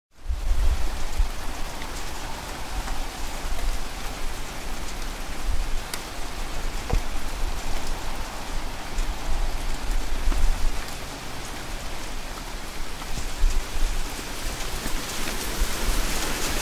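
Steady hiss like heavy rain, with a gusting low rumble underneath: wind buffeting the microphone outdoors.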